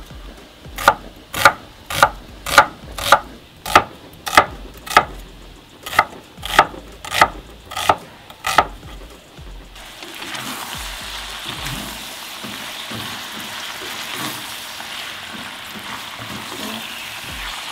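A large chef's knife chopping an onion into chunks on a wooden cutting board, a little under two chops a second, for about nine seconds. Then cubes of lamb frying in hot oil in a pan, a steady sizzle, stirred with a spatula.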